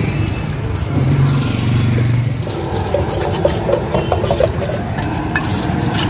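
Metal ladle scraping and knocking against a steel wok as a thin sauce is stirred, with quick clattering strokes through the second half. Under it runs a steady low engine-like rumble, strongest in the first half.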